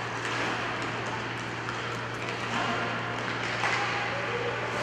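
Inline hockey play in a rink: scattered sharp clicks and clacks of sticks, puck and skate wheels over a steady hiss of room noise and a low steady hum.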